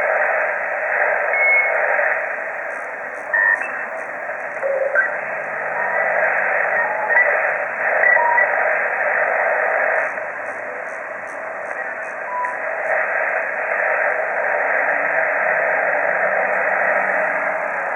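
HF ham receiver's audio filled with a steady rushing white-noise hiss across the voice passband. This is wideband interference (QRM) of unknown source. A few brief faint whistles of other signals come through the hiss.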